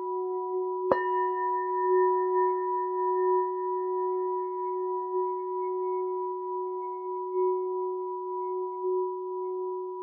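Gold-coated handheld crystal chalice singing bowl ringing a sustained F# tone with bright overtones, wavering gently in loudness. About a second in a sharp knock on the bowl adds a higher ring that carries on over the steady tone.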